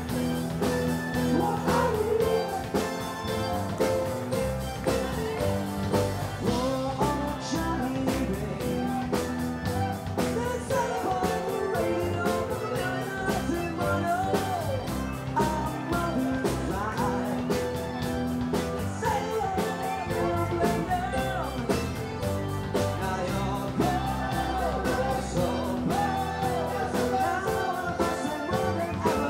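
Live rock band playing amplified through a club PA: electric guitars, bass and drum kit keeping a steady beat, with a lead vocal.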